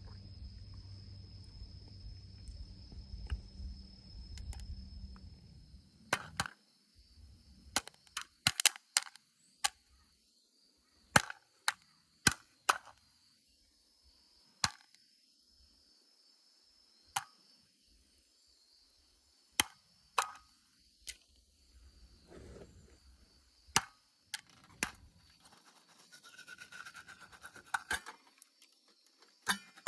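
Popcorn kernels popping inside an antique metal bed warmer over a campfire: sharp, irregular single pops, each a second or more apart, starting about six seconds in after a low rumbling noise stops.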